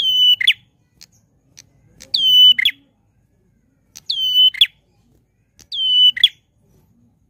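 Caged prenjak klawu calling loudly: four calls about two seconds apart, each a sharp high note that drops onto a held whistle and ends in a quick falling flick.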